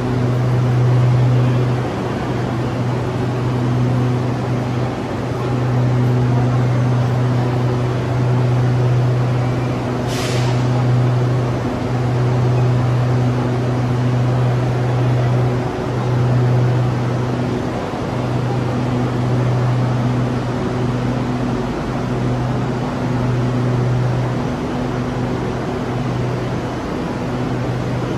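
Red Line electric train standing at the platform with its doors open, its onboard equipment giving a low steady hum that drops out briefly every few seconds. There is one short hiss of air about ten seconds in.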